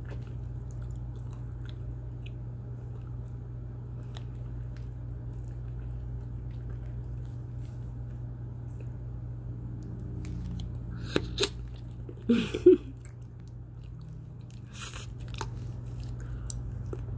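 Bubble gum being chewed by a denture wearer: faint wet mouth clicks and smacks, with a cluster of several louder sharp snaps about eleven to thirteen seconds in and a smaller one a couple of seconds later.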